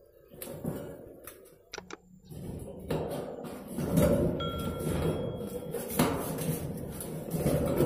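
Irregular metallic knocks and clanks, about half a dozen, each with a short ringing tail, from parts of a satellite dish's rusted mount being worked on.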